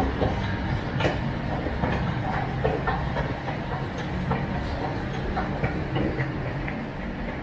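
1995 O&K RT-HDLS escalator running: a steady machine hum with irregular clicks and clacks from the moving steps, a little quieter near the end.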